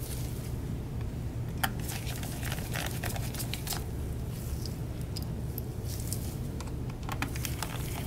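Scattered small clicks and taps of tiny laptop screws and a screwdriver being handled around the open chassis of a laptop, over a steady low hum.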